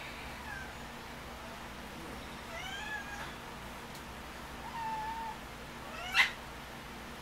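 A black house cat meowing several times while being held and hugged, each call gliding in pitch, the last one sharp and much louder near the end.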